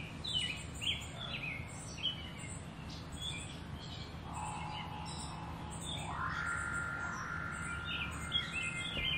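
Birds chirping, a run of short falling chirps. About four seconds in a steady held tone comes in, and about six seconds in a higher tone slides up and holds: a sustained musical drone starting under the birdsong.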